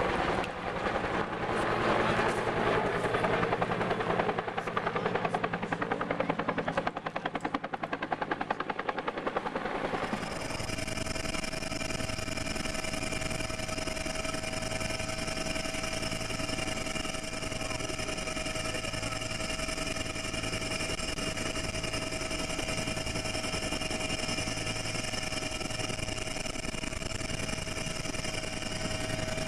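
A helicopter flying past with its rotor blades beating, the sound fading over the first ten seconds. After a sudden change at about ten seconds, a helicopter's engine and rotor are heard steadily from inside the cabin, a constant whine over a regular low rotor beat.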